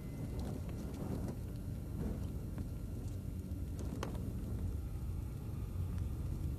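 Quiet, steady low rumbling background ambience with a few faint soft taps and rustles.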